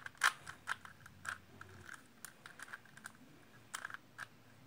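Plastic twisty puzzle being turned by hand: irregular sharp clicks and clacks of its layers turning, about two or three a second, the loudest just after the start.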